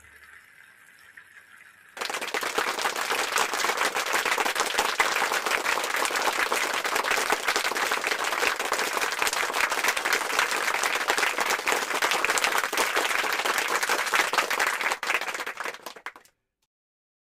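Crowd applause, a dense patter of many hands clapping, that starts abruptly about two seconds in and cuts off near the end.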